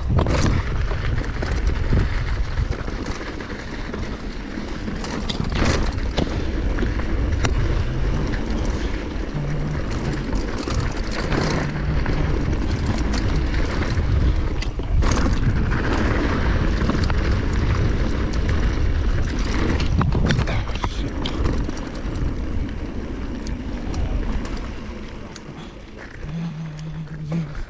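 Mountain bike ridden down a dirt and gravel trail: wind buffeting the helmet-camera microphone, tyres rumbling over gravel, and knocks and rattles from the bike over bumps. Near the end it quiets as the bike slows, with a brief low hum.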